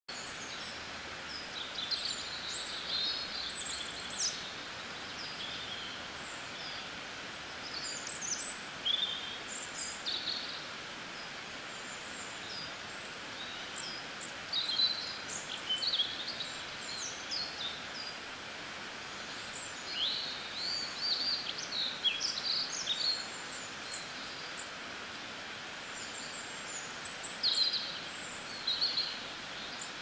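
Birds chirping and twittering in short, scattered clusters of high calls, over a steady background hiss.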